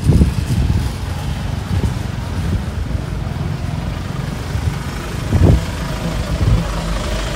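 City street traffic: a steady low rumble of cars running on the road, with a few dull low thumps.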